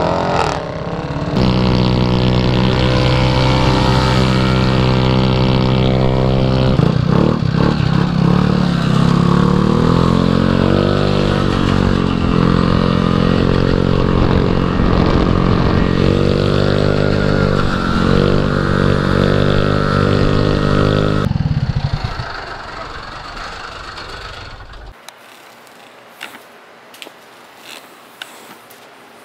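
Dirt bike engine heard from the rider's helmet, running at a steady pitch for a few seconds, then rising and falling over and over as the bike accelerates and shifts. It drops away about 22 seconds in, leaving a few light clicks.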